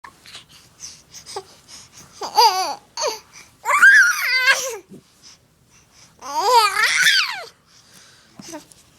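A young child babbling: three drawn-out, high-pitched vocal sounds with a wavering, warbling pitch, about two, four and seven seconds in, with soft little noises between.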